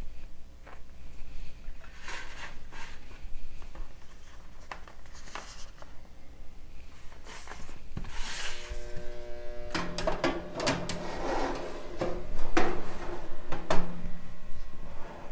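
Kitchen handling sounds: soft rubs and taps, then a metal baking tray scraping and clattering as it is slid onto the rack of a countertop toaster oven, with a brief metallic ring partway through.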